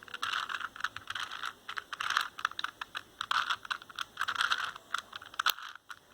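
A 4x4x4 Rubik's cube being turned by hand: quick runs of plastic clicking and scraping as its layers are rotated, with a short pause near the end.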